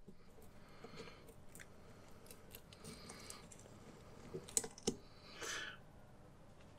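Faint small clicks and scraping of a blunt metal pick working the rubber seal off the back of a brake master cylinder, with two sharper clicks about four and a half seconds in and a short rub just after.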